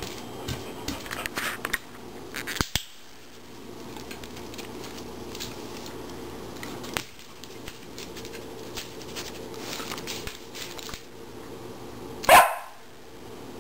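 Border Collie barks once, loudly, near the end, after a few light clicks and taps in the first three seconds.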